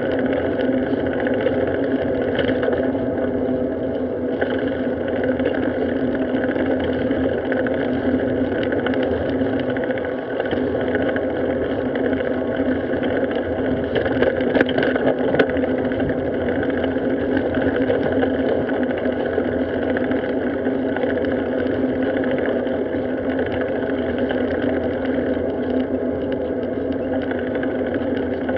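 Steady rush of wind and road noise on a Garmin Virb action camera's microphone as it is carried along a paved street on a bicycle.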